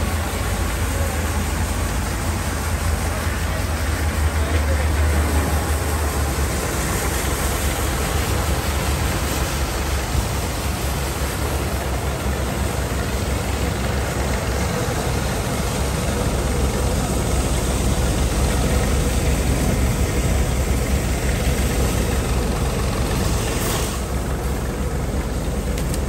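Tractor engine running steadily to drive a corn thresher, a constant low drone under an even mechanical noise.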